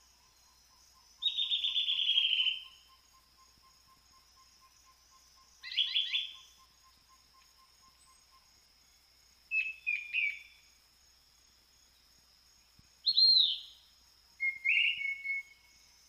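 Forest birds calling in five short phrases: a long, slightly falling buzzy call about a second in, then quick chirps, a double call, an arched whistled note and a short chattering phrase near the end, each loud against quiet gaps. A faint steady high-pitched tone runs underneath.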